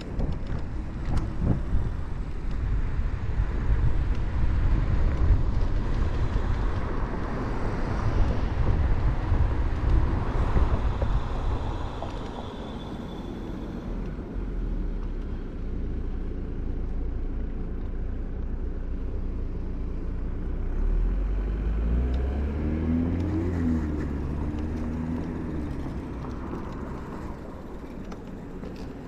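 Wind rush and tyre noise from riding a Kaabo Mantis electric scooter at speed, with heavy low rumbling in the first half that eases after about halfway. Later on, a passing car's engine note swells and fades.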